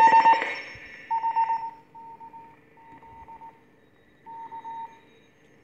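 Morse code (CW) signal heard through a WW2 BC-348 communications receiver with its beat frequency oscillator switched on: a single steady tone keyed on and off in dots and dashes over faint receiver hiss. The tone is loud for the first half-second, then falls to a quieter level.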